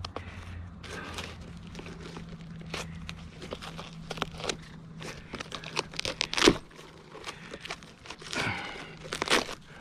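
Crackling and crunching of rotten dead wood being chipped and broken away by hand around a tree hole, with one sharp knock about six and a half seconds in. Near the end, a short cry from the stuck cat.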